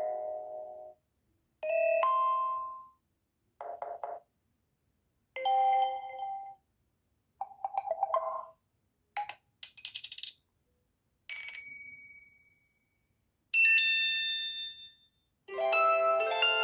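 Samsung Galaxy A3 (2015) stock alert tones played one after another: about eight short chimes and jingles of a second or so each, with brief silences between.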